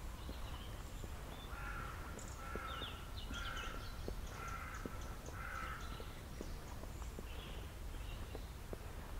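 A crow cawing five times in a row, about a second apart, with faint footsteps and small birds chirping.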